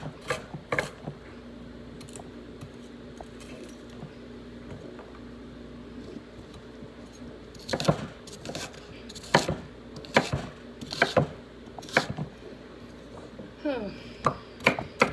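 Kitchen knife chopping green bell pepper on a wooden cutting board: two knocks of the blade at the start, a pause, then about six chops roughly one a second from about 8 seconds in.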